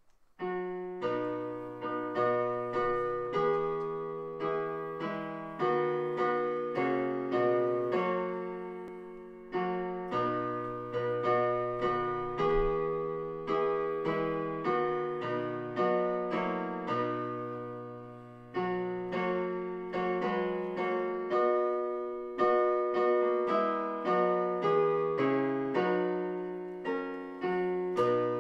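Solo piano playing slow chords and melody, each note struck and left to ring and fade. It breaks briefly between phrases about a third and two thirds of the way through.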